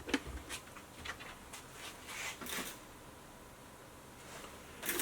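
A few faint, short handling noises in the first couple of seconds, then quiet room tone.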